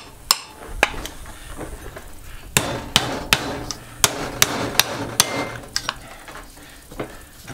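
Hammer blows on the shaft of an old air-conditioner fan motor, driving the rotor out through its aluminum end bell. There are about ten sharp metal knocks at uneven intervals, most of them from about two and a half seconds in. The rotor is stuck halfway.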